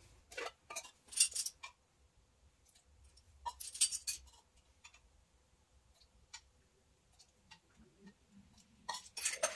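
A ring of metal measuring spoons jangling and clinking as they are handled. The loudest clinks come about a second in and again about four seconds in, with fainter ticks between and a few more clinks near the end.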